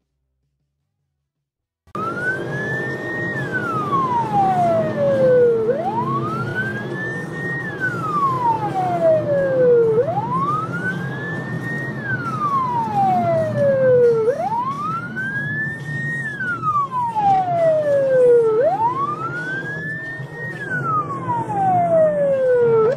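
Russian police car siren, in a repeating cycle of a quick rise in pitch and a long, slow fall about every four seconds, over engine and road noise; it starts about two seconds in after silence.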